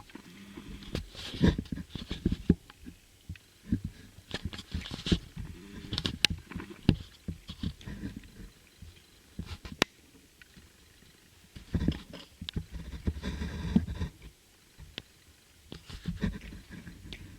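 Irregular handling noise of an unboxing: rustling packaging and parts, with sharp clicks and knocks scattered throughout.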